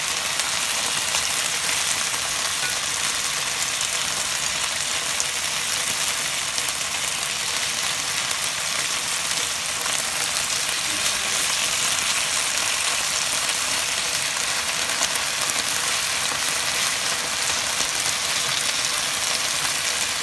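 Marinated beef slices frying in hot oil in a nonstick pan: a steady sizzle with fine crackling.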